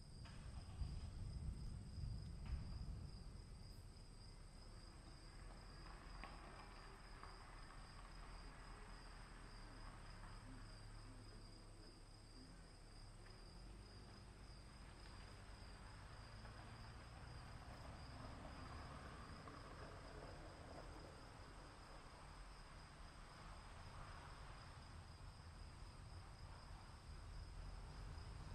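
Faint background ambience: a steady high-pitched whine or trill over a low rumble.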